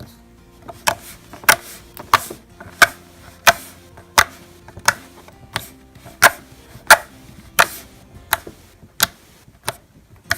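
Homemade slime being squeezed and folded by hand, giving a regular run of sharp clicking pops, about three every two seconds.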